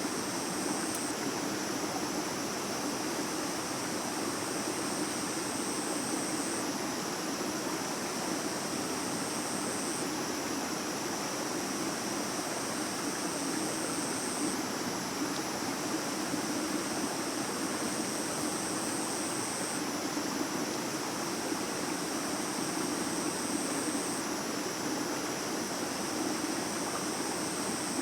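A stream running steadily over rocks. A faint high-pitched whine comes and goes every few seconds above it.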